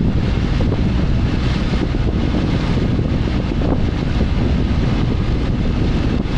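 Wind buffeting the microphone in a steady low rush as a small motorboat runs across the sea, with the boat's own noise underneath.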